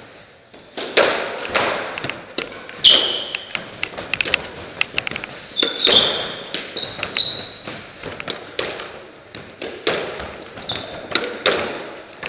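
Squash rally: sharp racket strikes and the ball smacking off the court walls, a dozen or more hits ringing in the enclosed court, with short high squeaks of shoes on the floor between them.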